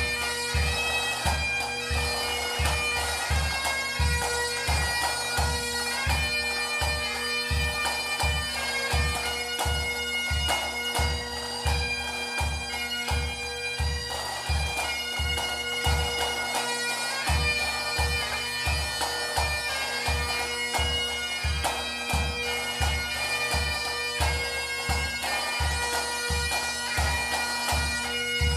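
Pipe band music: bagpipe melody over a steady drone, with a regular bass drum beat.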